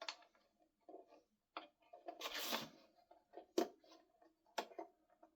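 Small parts being handled: a few sharp clicks and taps spread about a second apart, with a brief scraping rustle about two seconds in, as the compressor's fuse and fittings are worked by hand.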